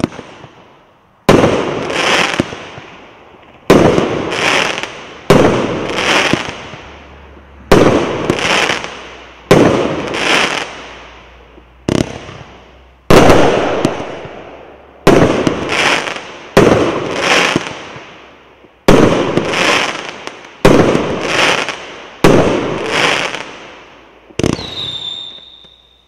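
A 50-shot consumer fireworks cake (P7035 'Zhar-ptitsa', 0.8- and 1.2-inch tubes) firing shot after shot, about one every one to two seconds, each a sharp bang trailing off in a crackling decay. Near the end one shot carries a falling whistle.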